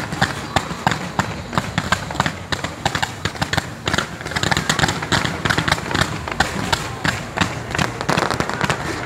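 Fireworks crackling and popping in a rapid, irregular stream of sharp cracks, several a second, with voices in the background.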